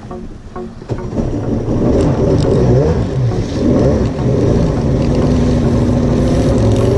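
Jet ski engine going from idle to throttle about a second in, then running under way with its pitch rising and falling, along with the wash of water past the hull.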